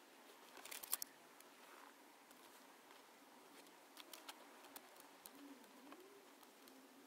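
Near silence: faint clicks of wires and a small plastic connector being handled, most of them clustered about a second in. A faint low tone rises and falls near the end.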